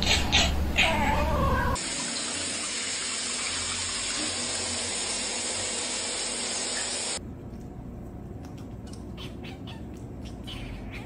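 A cat calls out briefly with its mouth wide open. It gives way to a shower head spraying a steady stream of water for about five seconds, which cuts off suddenly. The rest is quieter, with a few faint ticks.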